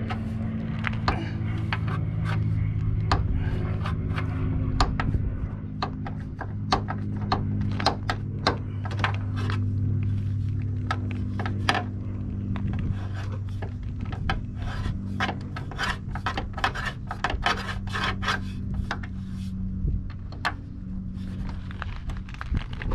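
Socket ratchet clicking in quick runs of strokes on the door hinge bolts, over a steady low hum.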